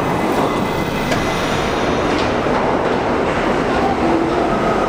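NYC Subway R68 train running along the track: a steady loud rumble with wheel clatter, and a thin high squeal comes in about four seconds in.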